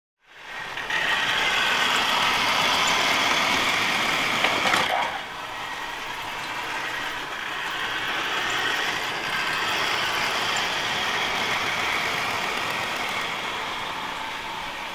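Model train running on its track: the electric motor whirs steadily and the wheels rattle on the rails, with a sharp click about four and a half seconds in. The sound then drops noticeably in level and runs on more quietly.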